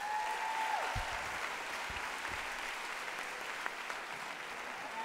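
Audience applauding steadily in a large hall, with a high held tone over the clapping at the start that slides down about a second in.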